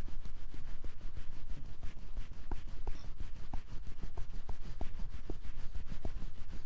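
Fingers rubbing briskly up and down over the ears in a fast, even rhythm of several strokes a second, with small ticks mixed in.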